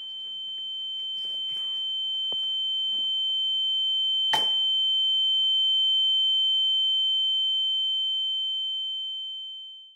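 A steady, high-pitched electronic tone, slowly growing louder and then fading out at the very end. A single sharp knock about four seconds in.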